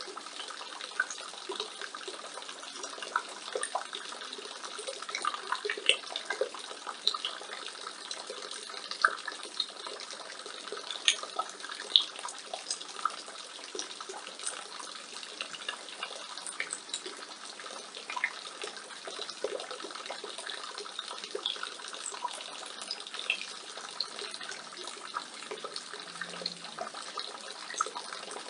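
Rainwater falling from a roof gutter: a steady splashing stream, with many small irregular drip and splash sounds throughout.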